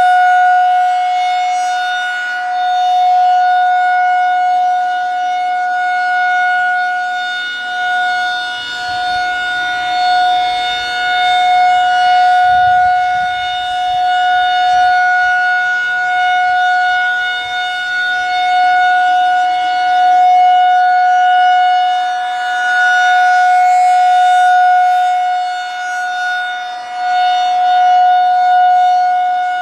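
Federal Signal 2001-SRN single-tone chopper siren sounding its steady alert signal, as used for tornado warnings. One held pitch, loud, swelling and fading every few seconds as the rotating head sweeps past.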